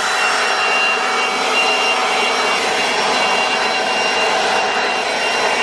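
Cordless battery-powered handheld leaf blower running steadily: a loud rush of air with a steady high whine from the fan.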